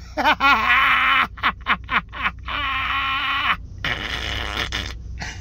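A voice making wordless sounds in several short runs, its pitch bending up and down.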